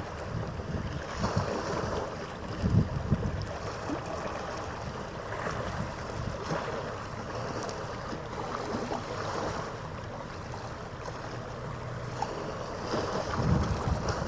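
Wind buffeting the microphone in low gusts, loudest about three seconds in and again near the end, over a steady rushing background of harbour water and distant ship noise.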